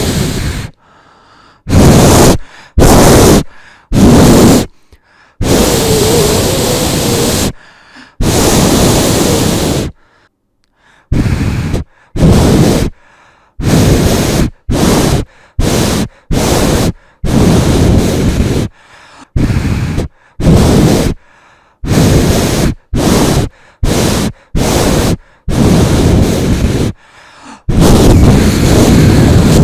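A person blowing hard at a campfire with his mouth to put it out: loud, rushing puffs of breath over and over, each a second or less, with short quiet pauses between.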